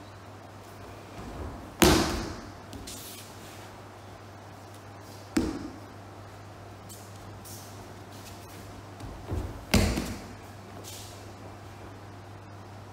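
Aikido practice on tatami mats: three sharp thuds and slaps as the partner is taken down and hits the mat, at about two seconds, five seconds and ten seconds, each ringing briefly in the hall. A low steady hum runs underneath.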